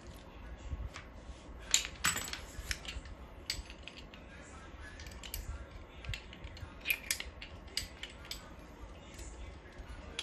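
Steel monitor-stand arm being handled, its metal joints and parts clicking and knocking irregularly. The sharpest knocks come just before two seconds in and again about seven seconds in.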